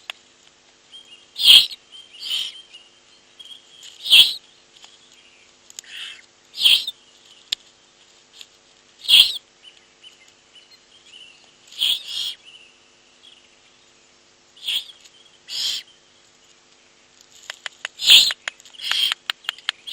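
Owlets giving begging calls while prey is brought to them: short, noisy calls repeated every two to three seconds, with a quick run of clicks near the end.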